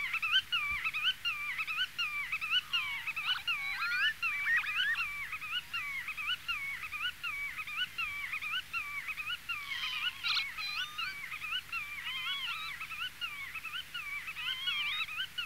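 Black-tailed godwit calling its own name over and over, a quick repeated call about twice a second that keeps going without a break. Other calls overlap it about three to four seconds in and again around ten seconds in.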